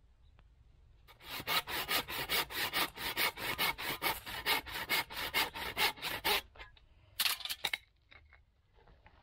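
Hand saw cutting wood in fast, even back-and-forth strokes, about five a second, stopping about six seconds in, then a short burst of a few more strokes.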